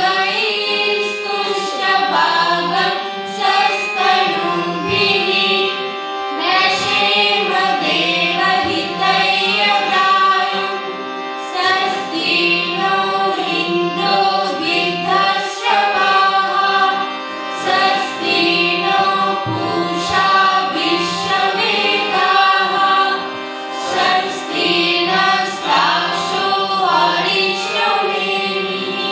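A devotional song sung by a group of voices, a man leading with young singers joining in, to a harmonium accompaniment that holds sustained notes under the melody.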